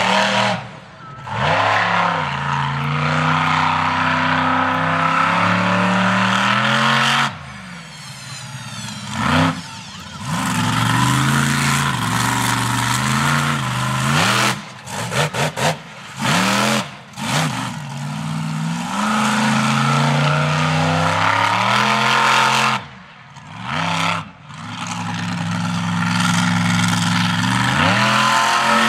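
Monster truck engine revving hard, its pitch climbing and falling again and again. The sound drops away abruptly several times, then picks up again.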